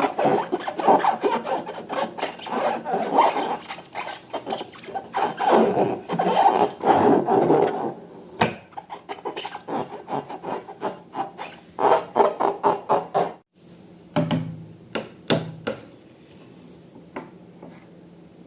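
Slime being squeezed and worked by hand, a dense run of crackling and popping for about eight seconds, then sparser pops, thinning to a few faint ones near the end.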